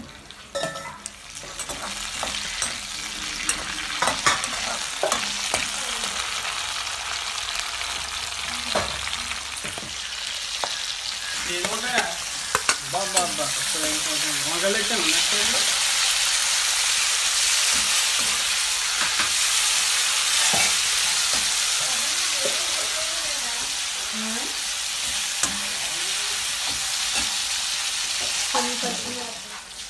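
Green chillies, tomatoes and garlic sizzling in hot oil in a metal kadai while a slotted spoon stirs them, with clicks and scrapes of the spoon on the pan. The sizzle grows louder about halfway through and drops away just before the end.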